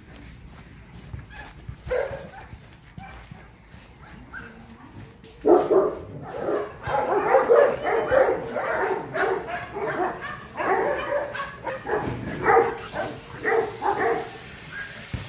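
Large dogs barking: a few scattered barks at first, then from about five seconds in many barks overlapping in a steady run.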